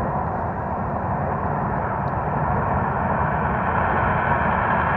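Jet engine noise from an F-35B Lightning II on landing approach: a steady, low rushing sound that slowly grows louder as the jet comes closer.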